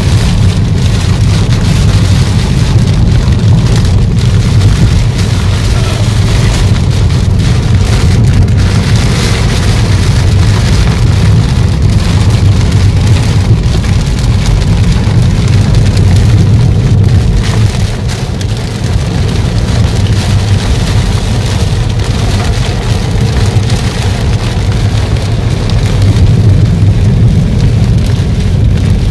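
Heavy rain hitting a moving car, over a steady low rumble from the road and engine.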